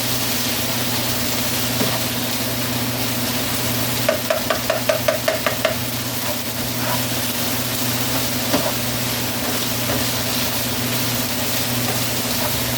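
Green peppers and mushrooms sizzling steadily in a frying pan, with a steady low hum underneath. About four seconds in comes a quick run of about nine short strokes of a utensil stirring against the pan.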